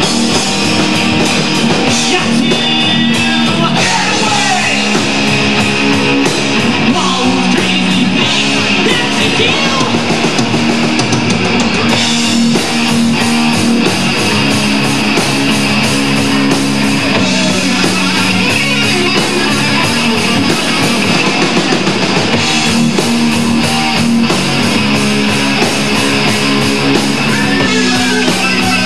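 Rock band playing live at full, steady volume: electric guitar, bass guitar and drum kit.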